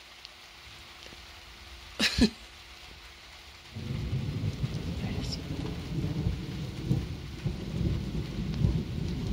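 Thunder: about two seconds in a single short, sharp crack, then near four seconds a loud, low rolling rumble sets in abruptly and keeps going, over light rain.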